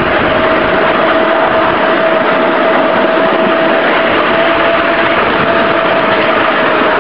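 A 5-inch gauge electric shunter locomotive running along the track: a steady whine, wavering slightly in pitch, over a loud, even rushing noise of the moving train.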